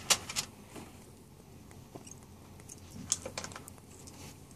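Sharp plastic clicks and rubbing from fingers handling a plastic fidget spinner right at the microphone: a few clicks in the first second, then a pair about three seconds in.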